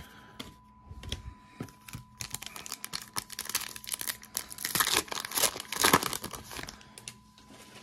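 Foil wrapper of a Panini Contenders football card pack being torn open and crinkled by hand, a dense crackling that builds to its loudest toward the end and then fades.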